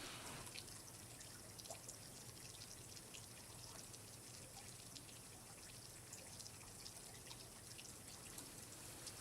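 Faint water dripping and trickling, with many small scattered drips over a soft steady wash.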